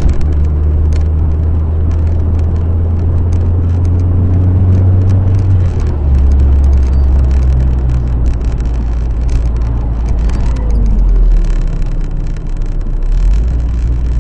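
Car engine and road noise heard from inside the cabin while driving: a steady low drone that drops in pitch about six seconds in and again about eleven seconds in, as after gear changes, with frequent small clicks and rattles.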